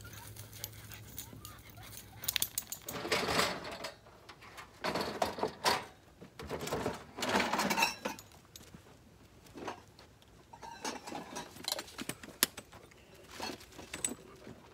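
A dog panting hard in several noisy bursts in the first half, then light clicks and knocks of gear being handled at a pickup's tailgate.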